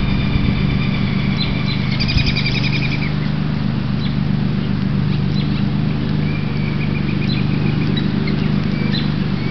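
Songbirds chirping, with a quick trill of repeated notes about two seconds in, over a louder steady low hum.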